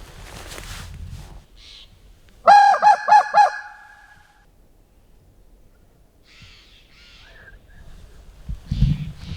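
A hunter's call blown close by: a burst of about five quick, raspy notes, meant to make a turkey gobble and give away where it is. A few seconds later come faint, distant calls, and a low thump near the end.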